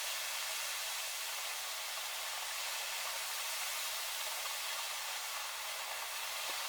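Rain and strong wind making a steady, even hiss.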